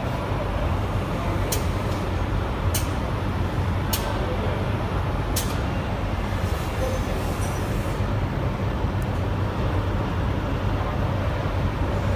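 Vertical form-fill-seal packing machine running, heard from inside its cabinet: a steady low hum with sharp clicks about every 1.3 seconds through the first half, and a short hiss of air a little past the middle.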